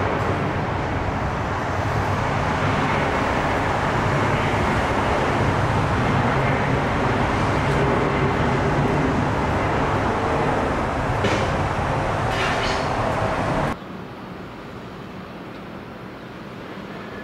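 Jet engines of a Boeing 757 freighter, a loud steady roar with a deep rumble during its landing roll. The roar cuts off abruptly about 14 seconds in, leaving a quieter steady airport background.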